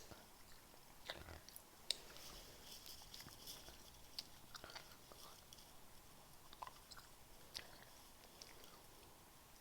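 Faint chewing of a chewy sour apple sweet: wet mouth clicks and smacks at irregular intervals, a few of them sharper.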